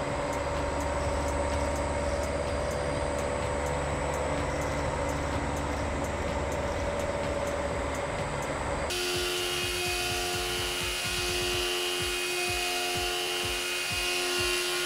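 Kent 10 by 50 CNC mill cutting a metal plate, its spindle and cutter running steadily. About nine seconds in, the sound switches abruptly to a higher, different texture with steady tones and a regular low pulse.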